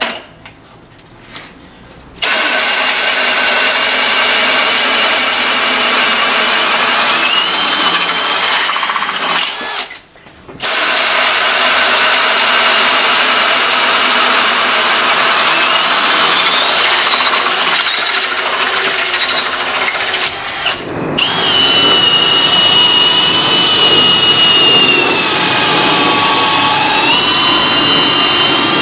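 Milwaukee M18 Fuel cordless drill running hard under load as a 3-inch bit bores into wood. It starts about two seconds in, and its motor whine sags and recovers as the bit bites. It stops briefly twice.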